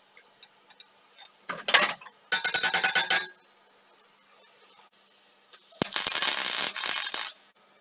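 Electric arc welding on a steel frame: three bursts of steady crackling. The first is about half a second long, the second about a second, and the third, starting near six seconds in, about a second and a half. Before them there are a few faint clicks from the steel being handled.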